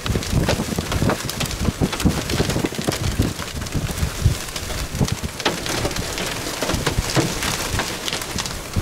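Rain and gusty wind on the microphone: a steady hiss of rain with many irregular sharp ticks of drops striking close by, over an uneven low wind rumble.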